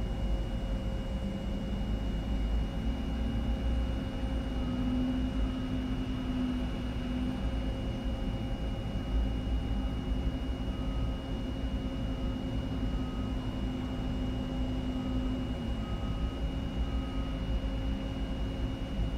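Jet engines running steadily on an airport ramp: a constant low rumble with a steady high whine over it. Faint short beeps repeat in irregular groups through the middle.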